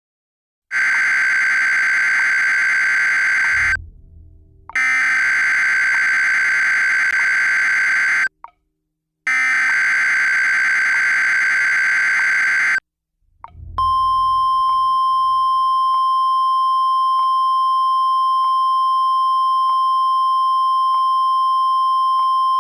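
Emergency Alert System (SAME) header: three identical bursts of warbling digital data tones, each about three and a half seconds long with a second's silence between them. They are followed about 14 seconds in by the steady single-pitch 1050 Hz weather-radio attention tone. Together they signal an incoming tornado warning.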